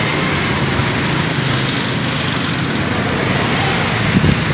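Steady street traffic noise: a continuous even rumble and hiss of passing road vehicles with a faint low engine hum, without distinct events.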